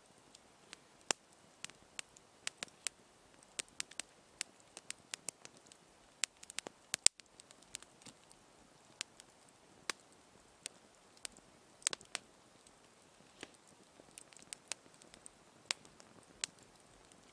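Campfire of small dry sticks just catching on a bed of embers, crackling with irregular sharp pops, about two or three a second, the loudest about seven seconds in.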